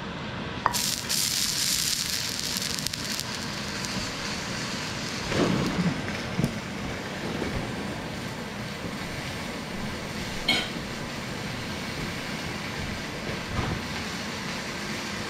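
Chicken sizzling in a hot skillet, with a louder burst of hissing sizzle about a second in. A few thumps of the pan and utensils being handled follow, and a sharp clink a little past the midpoint.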